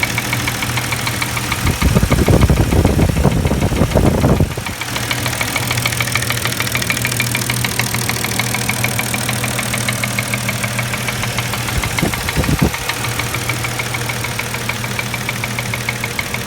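Mercedes M112 V6 engine idling with a steady fast knock, which the owner places in the left cylinder head and which did not go away with the ignition coils disconnected. About two seconds in it gets louder for around two and a half seconds, with a short louder spot later on.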